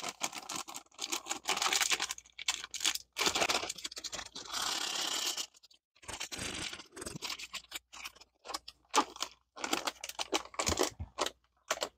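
Plastic flameless ration heater bag and food pouch being handled: irregular crinkling and rustling with many small clicks, and a longer rustle about four to five seconds in.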